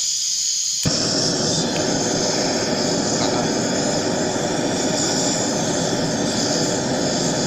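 Propane turbo torch flame hissing, then about a second in a click and the torch runs on as a steady, full roar while heating molten solder in the crucible.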